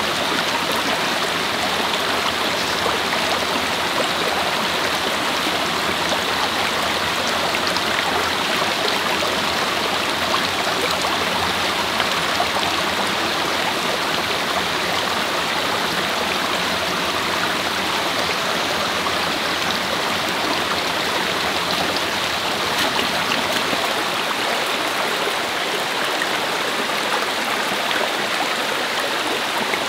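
Steady, even rush of flowing river water, unbroken throughout.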